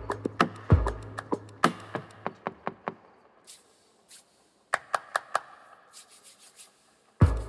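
Percussion track built from knocks and hand rubs recorded on a building's windows, walls and rain gutters. A run of sharp knocks, with a deep thump under the first second, thins out into a quiet break of hissing rubs and a few scattered knocks. Near the end the full beat with its deep thump comes back in.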